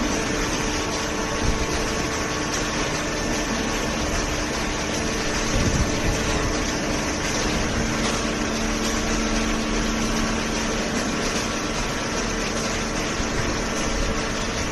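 Hydraulic baling press running: its electric motor and hydraulic pump give a steady mechanical hum. A slightly lower tone joins in about eight seconds in for a few seconds.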